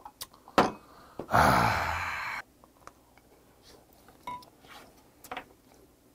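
A sharp knock as a drinking glass is set down on the table, then a loud, breathy exhale of about a second, fading out, after a shot of liquor. Faint chopstick clicks and chewing follow.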